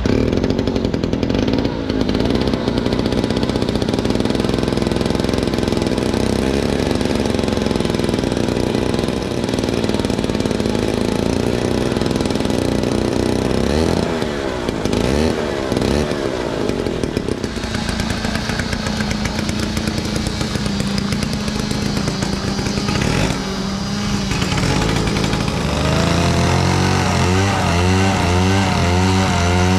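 Antique gasoline chainsaw engine running loud and steady, its pitch rising and falling a few times midway. Near the end its note starts to waver up and down in a quick rhythm.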